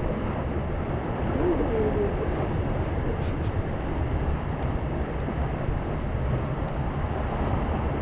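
Steady rush of churning rapids water around a river-rapids ride raft, with wind noise on the microphone.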